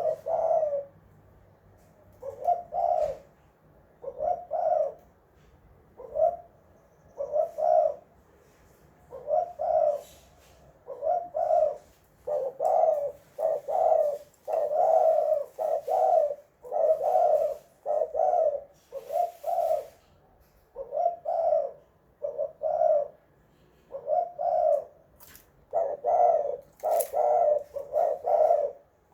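Spotted dove (tekukur) cooing over and over in short phrases of two or three low coos, each phrase separated by a brief pause.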